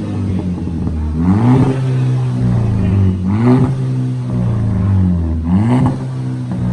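Audi A3 engine through a 2.5-inch straight-pipe exhaust, idling and blipped three times, each rev rising sharply and falling back about two seconds apart.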